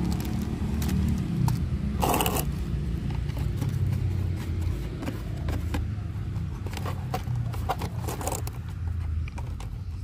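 Handling noise from a cardboard toy box and its packaging: scattered clicks, scrapes and rustles, the loudest about two seconds in. A steady low rumble runs underneath, with a hum that fades in the first second or so.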